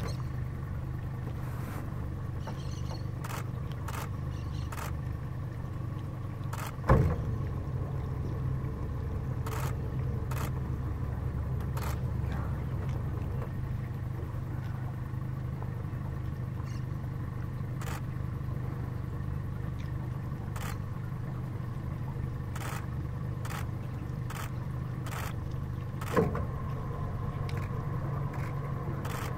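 Boat engine idling with a steady low hum, with scattered sharp clicks and two louder knocks, one about seven seconds in and one near the end.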